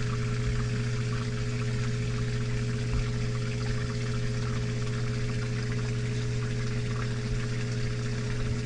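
Water pump running steadily with a constant hum, drawing water out of a flooded boat through a hose, with the water splashing and trickling.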